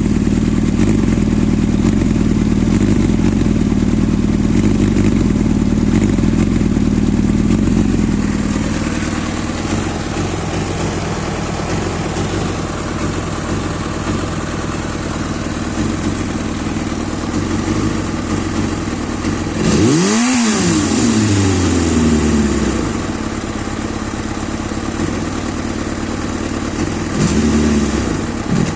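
Kawasaki ZXR400 inline-four motorcycle engine idling roughly. About twenty seconds in, one throttle blip sends the revs up quickly, and they sink back only slowly; a smaller blip comes near the end. It is a rough idle with delayed throttle response and revs that hang around 2,000 rpm.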